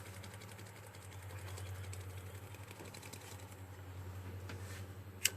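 Steady low, fast-pulsing hum with faint scattered ticks, then a single sharp click about five seconds in, a Bic lighter's flint wheel being struck.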